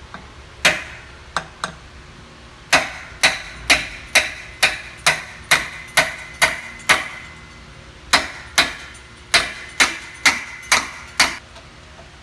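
Hammer blows on metal: three separate taps, then two steady runs of about ten and eight strikes at roughly two a second, each with a short metallic ring. This is hammering work in replacing a drive shaft bearing.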